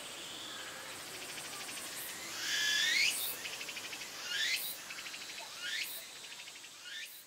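A cicada singing in a repeating phrase: a rising sweep followed each time by a rapid pulsed buzz, about four times. The first sweep is the loudest and the later ones grow fainter.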